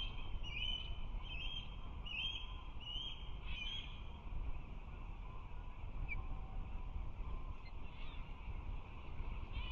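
Osprey calling: a run of short, high whistled chirps, about three every two seconds, that stops about four seconds in, over a steady low rumble.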